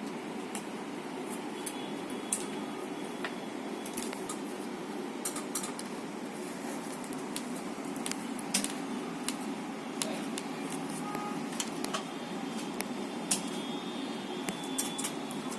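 Scattered small clicks and taps of hands working on the exit light's wiring and plastic parts, over a steady low background hum.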